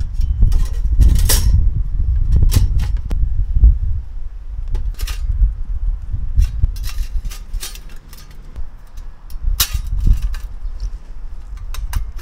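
Scattered sharp clicks and knocks, the loudest about a second in and again near the end, over a steady low rumble.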